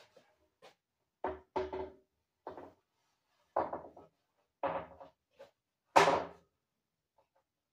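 A wooden board being handled and set down on a workbench frame: a run of about seven separate knocks, each with a short ring, the loudest about six seconds in.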